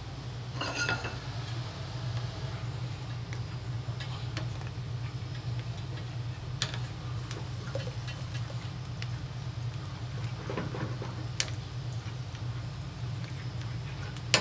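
A steady low hum, with a few light clicks and knocks of a utensil against a cooking pot as the tomato sauce and chicken base are worked in; one knock rings briefly about a second in.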